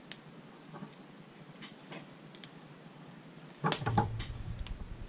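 Handling noise at a workbench: a few faint clicks, then about three and a half seconds in a louder clatter of knocks with a low rumble as the coax cable and roll of electrical tape are lifted off the bench.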